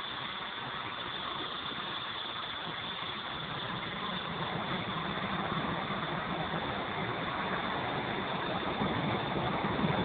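Walkera V200D02 flybarless electric RC helicopter in flight: a steady high-pitched motor and rotor whine that grows louder in the second half.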